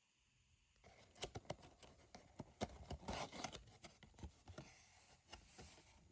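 Faint rustling with scattered sharp clicks, starting about a second in after near silence.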